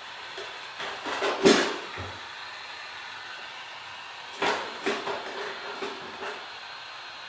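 Heat gun blowing with a steady hiss, broken by two short clusters of knocks and clatters as things are handled on the work surface. The loudest knock comes about one and a half seconds in, and a second group follows around four and a half to six seconds in.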